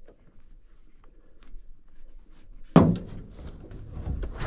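Rustling of clothing and shoes as a person pulls on a shoe and shuffles across a pickup's ribbed bed liner inside a canopy, with a sharp thump a little under three seconds in.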